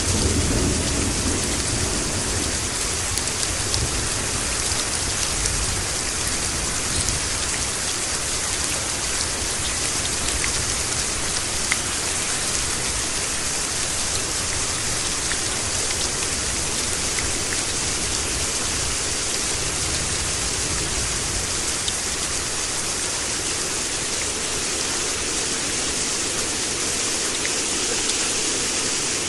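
Steady rain falling hard, a dense even hiss with scattered drop ticks. A low rumble sits under it in the first couple of seconds.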